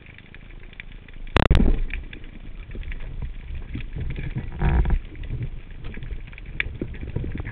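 Speargun firing underwater: one sharp, loud clack about a second and a half in, then a second loud, duller burst about three seconds later, over a steady underwater crackle of small clicks.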